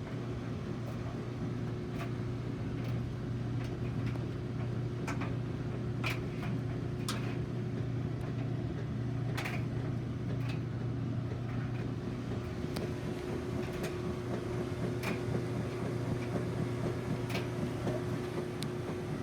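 A steady low mechanical hum with scattered light clicks and ticks.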